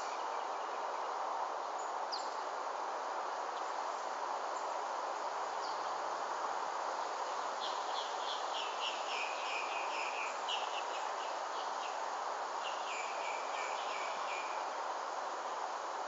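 Steady outdoor ambient hiss with a small songbird singing twice, each song a quick run of chirping notes stepping down in pitch, the first about eight seconds in and the second near the end.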